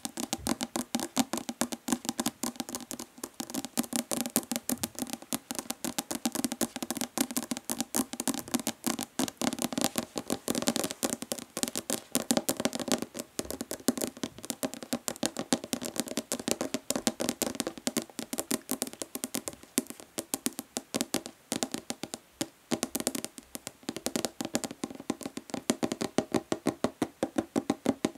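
Natural fingernails tapping fast on a plastic body lotion bottle, a rapid, uneven run of hollow clicks.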